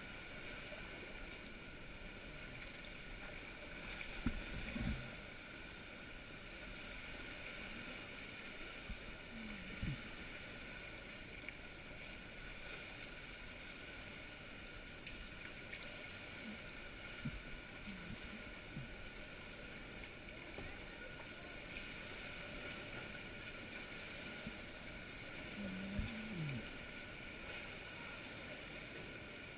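Sea kayak paddling through calm water: a few scattered paddle strokes, knocks against the hull and water sloshing over a steady hiss.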